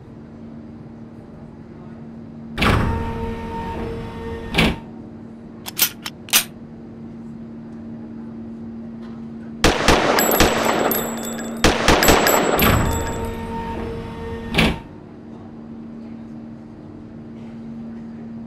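Handgun shot sound effects in an indoor range: a couple of single shots with ringing, a few sharp clicks, then a rapid string of shots and one last shot, over a steady low hum.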